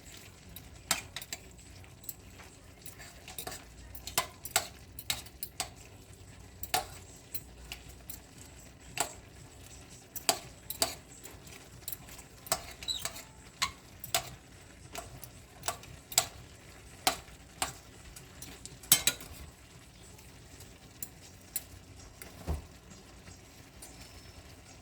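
A cooking utensil stirring and tossing pancit noodles in a pan, knocking and clacking against the metal in irregular strokes about once a second, over a light sizzle of frying.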